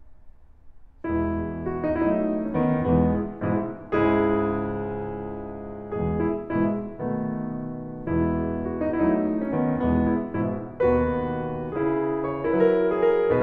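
Background piano music: a melody over sustained chords, coming in after a brief pause about a second in.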